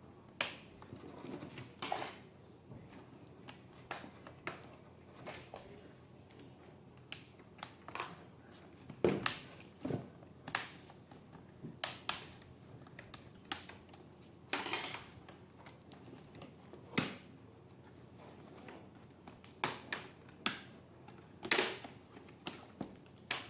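Irregular small clicks, taps and short scrapes of hard plastic and metal parts being handled while working on a ThinkPad laptop's case and internals during a RAM upgrade.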